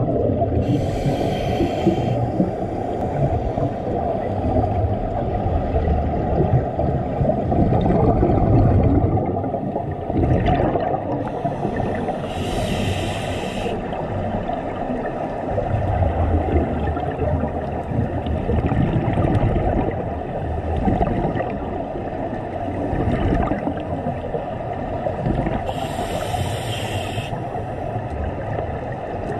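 Underwater sound picked up by a diver's camera: a steady, muffled low rumble of water and exhaled bubbles. A scuba regulator's breath hiss comes three times, about twelve seconds apart.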